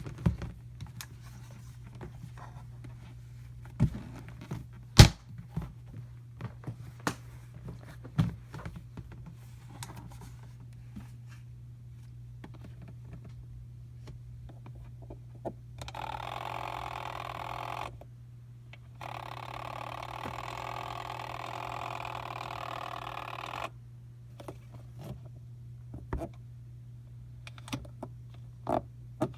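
Handling of a portable washing machine's plastic parts: scattered clicks, knocks and thunks, with one sharp knock about five seconds in, over a steady low hum. About halfway through, a steady rushing noise runs for two stretches of a few seconds each, with a short break between them.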